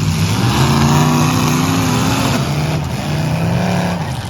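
Car engines running loud and revving, the pitch rising and falling twice.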